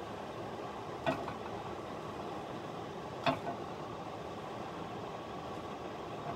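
Steady hiss of pancakes cooking in a hot pan on a gas hob. Two light knocks come about one and three seconds in, as a silicone spatula lifts cooked pancakes off the pan onto a plate.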